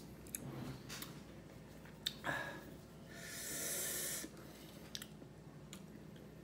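Eating sounds at a table: a few light clicks and taps, then a long hissing breath lasting about a second near the middle.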